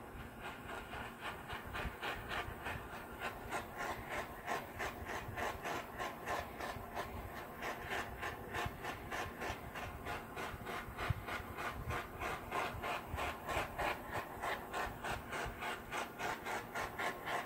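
Handheld butane torch hissing, its flame swept back and forth over wet acrylic paint, so the hiss swells and fades about three times a second.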